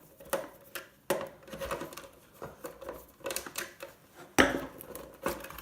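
Hands and a tool working at the plastic casing of a gaming steering wheel to pop it off: scattered clicks and knocks, with one louder knock about four and a half seconds in.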